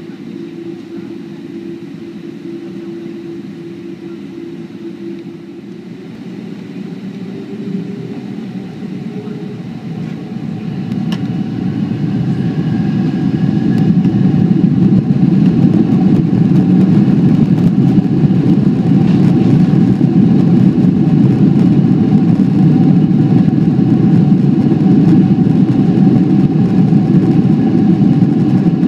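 Boeing 767-300's jet engines heard from inside the cabin over the wing: a steady hum while taxiing, then about ten seconds in the engines spool up to takeoff thrust. The sound climbs over a few seconds to a loud, steady roar with whining fan tones as the takeoff roll gets under way.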